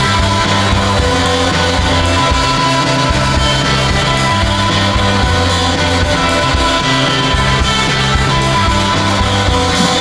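Background music: guitar-led rock with a steady bass line.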